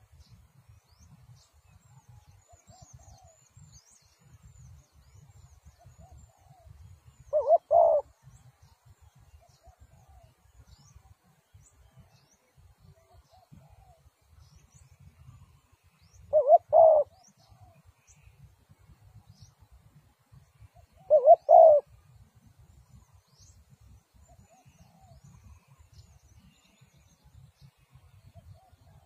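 Spotted dove cooing: three loud calls, each a quick run of two or three coos, the second about nine seconds after the first and the third about five seconds later. Fainter coos sound in between, and small birds chirp thinly and high.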